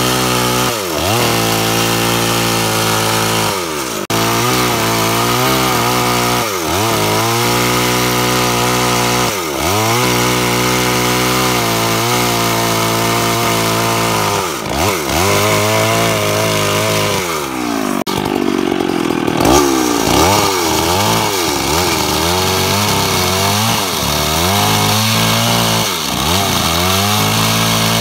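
Jonsereds 1020 two-stroke chainsaw running near full throttle while sawing into a tree stump. Its engine pitch sags and recovers every few seconds as the chain loads up in the wood.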